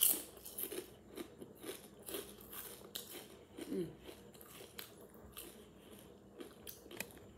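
A potato chip bitten with a loud crunch, then chewed with rapid crunching that grows sparser toward the end.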